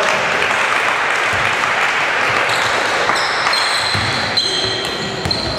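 Basketball bouncing on a hardwood gym court, against the steady noise of the hall during a game.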